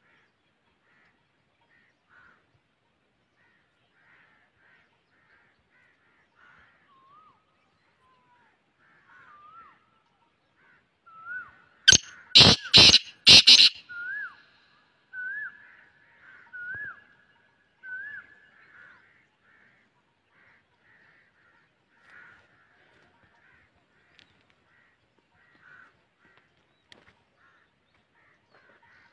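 Male black francolin calling: four loud, harsh notes in quick succession about twelve seconds in, followed by a run of short rising whistled notes, with faint scattered chirping throughout.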